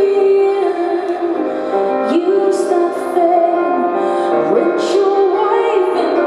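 A woman singing a song live over sustained musical accompaniment. Her voice slides up into a note about two seconds in and again at about four and a half seconds.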